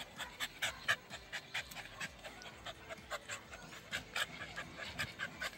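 Dog panting hard with its mouth open, quick even breaths about three a second: he is tired out after a long play session.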